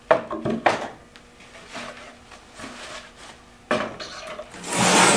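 Plywood panels knocking and scraping as the side panels of a collapsible brooder are pulled out of their base and leaned against other panels. Two sharp knocks at the start, another about three and a half seconds in, then a longer scrape near the end.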